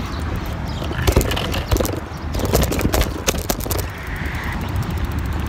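A bicycle rattling and clicking as the rider gets off and handles it, with a run of sharp knocks in the middle and a fast even ticking near the end. Wind rumbles on the phone's microphone throughout.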